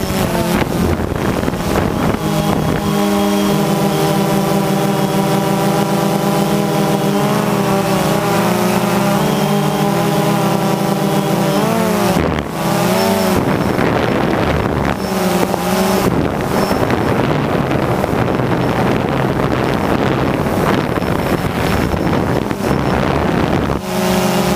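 Multirotor drone's motors and propellers humming, heard from the onboard camera: several steady tones that waver and dip in pitch about halfway through. Wind rushes over the microphone and for much of the second half covers the motor tones, which come back strongly near the end.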